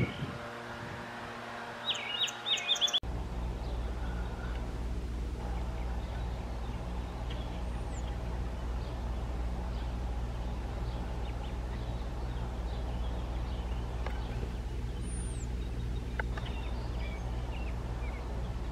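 Small birds chirping, with a quick run of loud chirps about two seconds in. After an abrupt change, a steady low hum continues with scattered faint bird chirps and thin high whistles over it.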